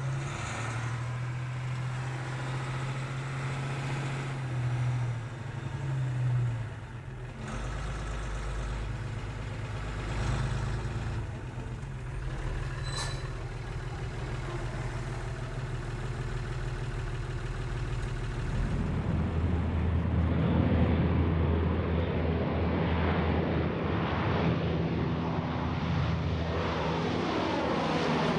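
Steady engine drone that shifts in pitch several times and grows louder about two-thirds of the way through, with a whine above it.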